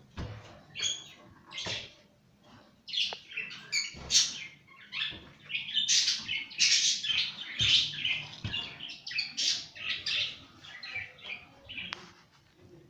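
Caged lovebirds chirping and squawking in a busy run of short, high calls, with a few soft knocks.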